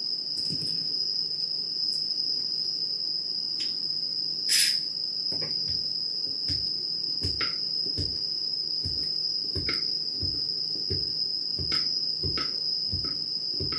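Kitchen knife cutting through folded udon dough into the board below, a soft thud about twice a second starting about five seconds in. A steady high-pitched whine runs underneath.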